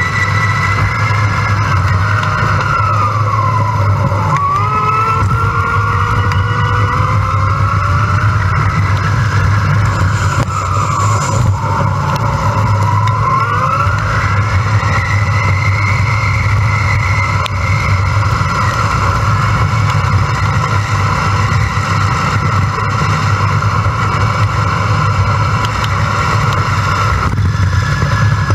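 Sped-up ride sound from an electric bike: steady wind rush on the microphone, with a whine from the hub motor that rises and falls in pitch as the speed changes.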